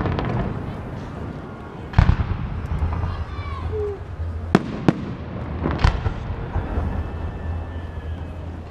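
Aerial fireworks shells bursting overhead: a deep boom about two seconds in, then sharp bangs a little past the middle and about six seconds in, with crowd chatter between.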